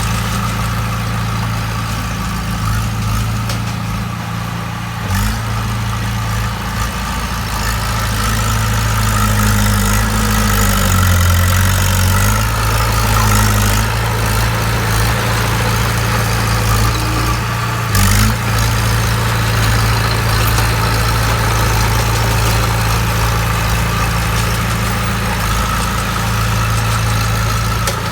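Bulldozer's diesel engine idling steadily, its note shifting briefly about ten seconds in, with a couple of sharp knocks.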